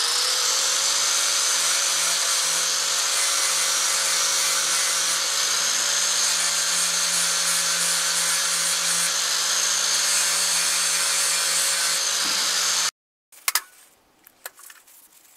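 Angle grinder with an abrasive disc grinding the paint off a steel pitman arm to bare metal ahead of welding: a steady high motor whine over the hiss of the disc on steel. It cuts off abruptly about 13 seconds in, and a few light handling clicks follow.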